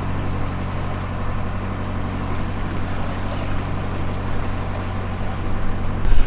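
Helia 44 sailing catamaran under motor: a steady low engine drone with a hiss of water and air over it.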